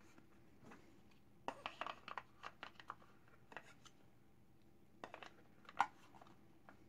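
Light clicks and clatter of Benelli M4 shotgun parts being handled and fitted back into the gun. They come in a cluster about a second and a half in and again around five to six seconds.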